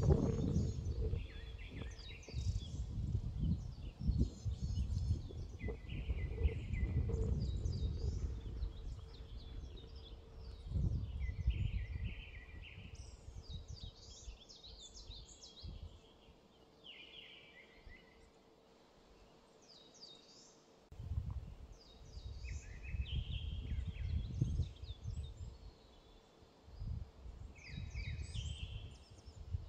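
Eurasian skylark singing: short, high warbling phrases repeating throughout. Gusts of wind rumble on the microphone and drop away for several seconds midway.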